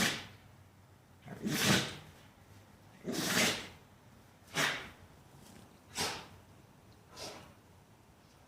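A pet sneezing over and over, about six sneezes roughly a second and a half apart, the last ones fainter.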